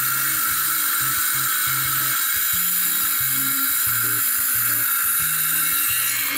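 Ryobi cordless circular saw running steadily as it rips through a sheet of plywood, with background music's bass line underneath.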